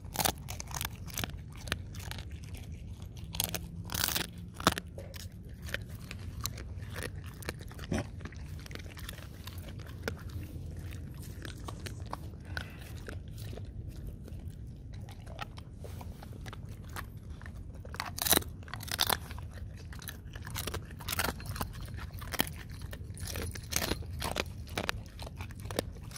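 Dogs, a Siberian husky among them, chewing and crunching hand-fed food close to the microphone: irregular crisp crunches and bites, coming in clusters.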